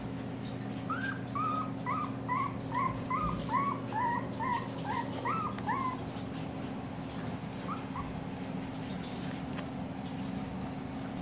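Two-week-old Siberian husky puppy whimpering: a run of short, high squeaks, two or three a second, for about five seconds, then two more a couple of seconds later.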